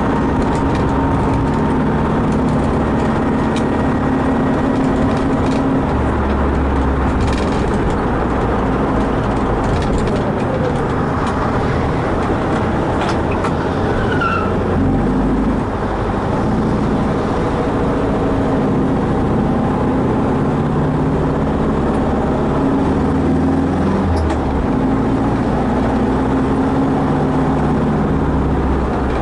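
Vehicle driving at highway speed: steady engine hum mixed with road and wind noise. The engine's low hum shifts up and down a few times.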